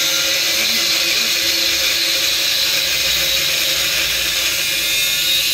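Handheld power tool running steadily against a reinforced-concrete pillar being demolished, a continuous high hissing whine with no separate strikes.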